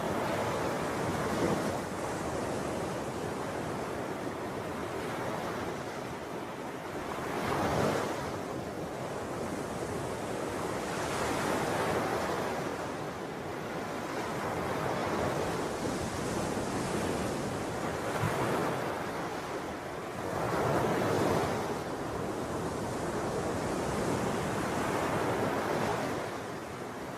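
Sea waves washing onto a shore, a steady rush that swells and falls back every four or five seconds.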